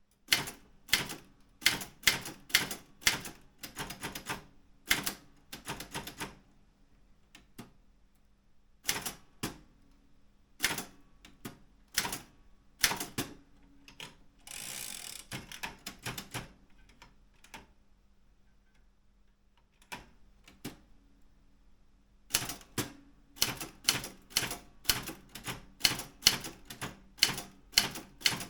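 Daro Optima M16 manual typewriter being typed on: sharp separate key strikes in uneven runs, with pauses between them. About halfway through there is a noisier sweep lasting about a second, and the last few seconds are a fast, even run of keystrokes.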